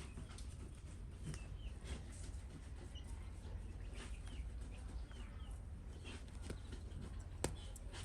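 Chickens peeping and clucking in short, repeated falling chirps, with scattered soft clicks and one sharper click near the end, over a steady low hum.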